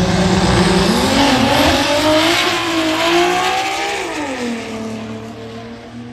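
Drag-racing cars, one a Toyota Supra, launching and accelerating down the strip. The engine pitch climbs for about three seconds, drops sharply about four seconds in, then holds lower as the sound fades with the cars pulling away.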